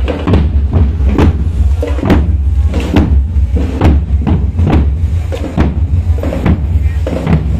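Marching bass drums beaten with mallets in a steady rhythm, about two to three strikes a second, over a steady low rumble.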